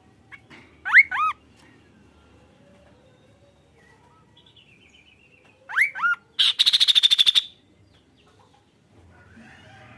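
Kaso-kaso bird calling: a pair of quick upswept whistles about a second in, another pair about six seconds in, then a loud fast rattling trill lasting about a second.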